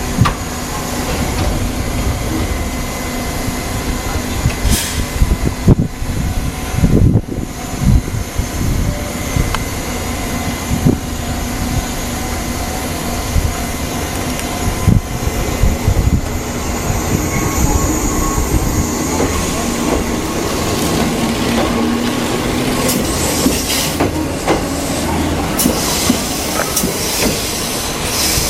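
Choshi Electric Railway train running on the rails, with steady running noise, irregular clacks over the rail joints and some wheel squeal.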